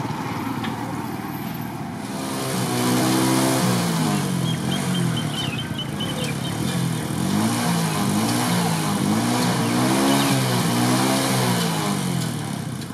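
A motor vehicle's engine, off-picture, runs from about two seconds in until near the end. Its pitch rises and falls several times as it revs.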